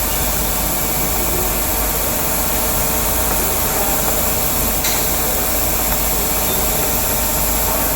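An engine running steadily at idle, a constant mechanical hum with a faint click about five seconds in.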